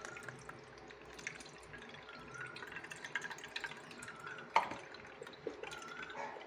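Blended banana-stem pulp being strained: juice trickling and dripping faintly through a mesh-lined plastic strainer, with many small drips and a light knock a little past halfway.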